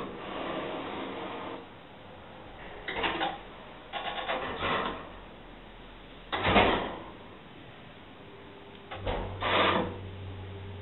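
Hydraulic elevator in operation: several clunks and rattles from its doors and car, the loudest a little past the middle. About nine seconds in, a steady low hum sets in.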